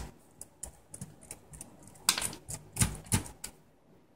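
Precision screwdriver turning tiny Phillips screws into the plastic base of a Toshiba Satellite A665 laptop: a run of irregular small clicks and ticks, with a few louder clicks a little after halfway.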